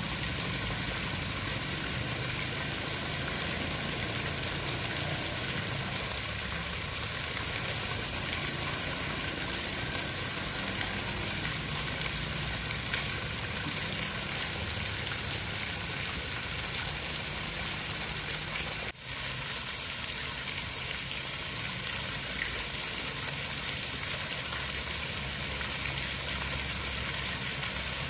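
Steady hiss of running water, even throughout, with a brief dropout about nineteen seconds in.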